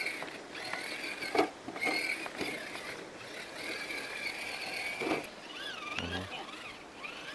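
Axial Trail Honcho RC crawler's electric motor and gears whining in short pulls of throttle, stopping and starting, with a few knocks of the tyres and chassis against rocks.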